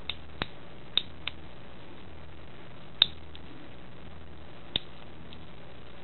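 About six short, sharp clicks, irregularly spaced and the loudest about three seconds in, from the mechanism of a Shimano trigger shifter being worked by hand. The shifter is not engaging properly.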